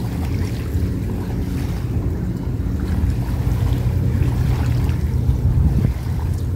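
Steady low motor drone, with wind buffeting the microphone.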